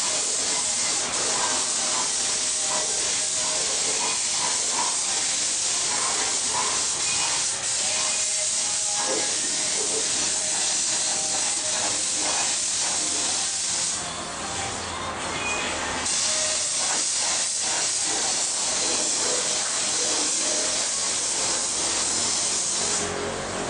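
Compressed-air spray gun hissing steadily as black paint is sprayed onto chassis parts. The hiss stops for a couple of seconds about two-thirds of the way through, leaving a low hum, then starts again.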